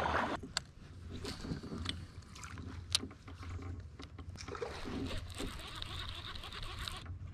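Water washing and dripping around a kayak hull as it is paddled, with several sharp clicks and knocks of gear on the boat. The loudest is a single click about three seconds in.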